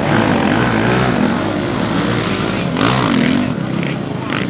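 Several motocross bike engines running and revving together, their pitch rising and falling, with a sharper rev about three seconds in.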